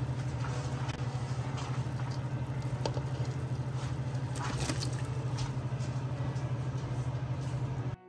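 Pot of broth with chicken feet at a rolling boil, bubbling over a steady low hum. There are a few sharp clinks and scrapes of a metal ladle against the pot around the middle.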